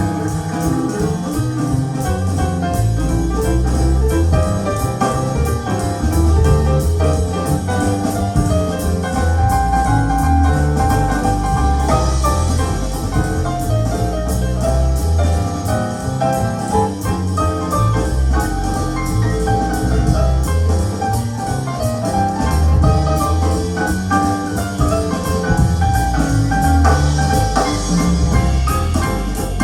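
Instrumental jazz with piano and a strong bass line, played back through KEF LS50 Meta bookshelf speakers with dual subwoofers.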